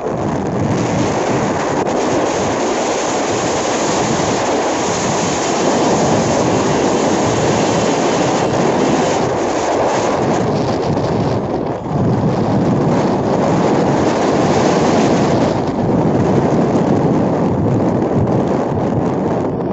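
Wind rushing over the microphone on a moving Royal Enfield 350 motorcycle: a loud, steady rush with a brief dip about twelve seconds in.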